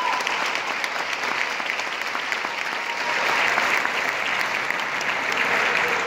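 A large audience applauding in a concert hall: steady, dense clapping that grows a little louder about halfway through.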